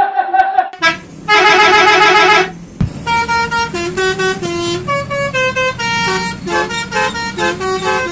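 Telolet-style musical bus horn (Basuri type) sounding: a held note sliding down in pitch, a short warbling tone, then a quick melody of short stepped notes, with a single click in between.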